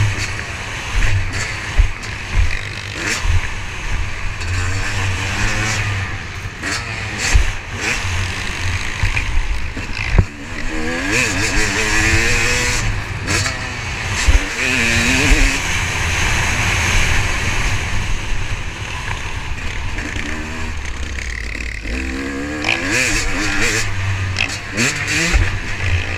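Motocross dirt bike engine under hard riding, its pitch climbing and dropping again and again as the rider accelerates, shifts and backs off, heard from on the bike with wind rush and bumps on the microphone.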